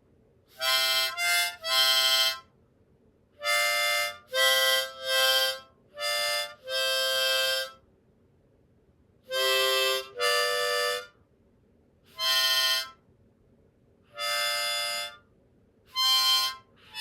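Harmonica played haltingly, reed chords blown and drawn from a numbered in/out tab: about fourteen separate notes, each under a second long, in short groups with pauses between them.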